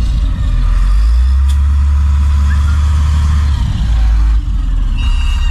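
Heavy vehicle's diesel engine running hard, its speed rising about a second in and dropping back a few seconds later, as machines work to free a stuck truck. A steady high beep starts near the end.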